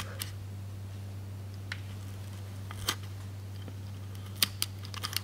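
Utility knife cutting slowly through automotive carpet along a marked line: a handful of separate sharp clicks over a steady low hum.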